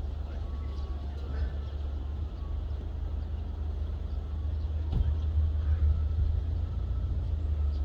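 Steady low outdoor rumble with faint distant voices, and a single sharp click about five seconds in.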